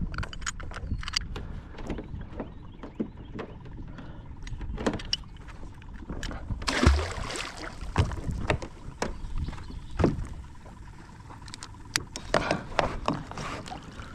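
Gear being handled aboard a plastic fishing kayak: scattered clicks and knocks of metal clips and hardware against the hull, with a splash about seven seconds in as the anchor goes over the side, its rope marked by a green foam float.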